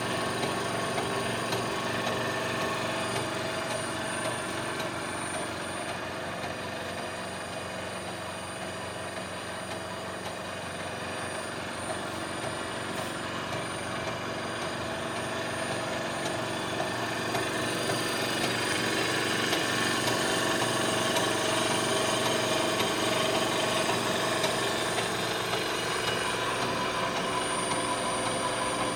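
PharmX high-shear granulating mixer running, its chopper at about 1400 rpm: a steady mechanical hum and whine with several steady tones, growing a little louder in the second half.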